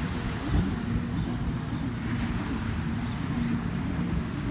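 A distant watercraft engine drones steadily, its pitch wavering slightly, over wind buffeting the microphone and surf washing on the beach.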